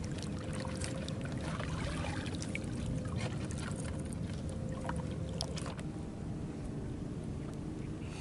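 Small waves lapping against the water's edge, with scattered light clicks; the sound drops a little about six seconds in.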